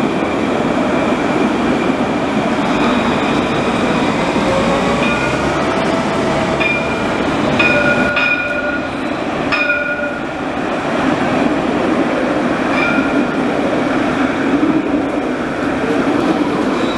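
Alstom Citadis street trams running past at close range, with steady rolling and running noise. Several short high-pitched tones cut through in the middle, and a faint tone rises slowly for a few seconds.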